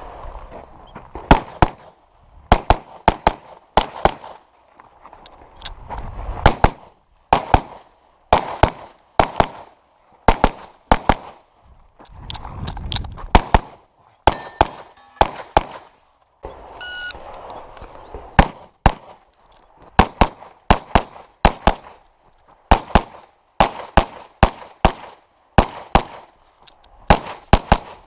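Handgun fired in fast pairs and short strings during a timed practical-shooting stage run, with brief pauses between strings while the shooter moves and reloads.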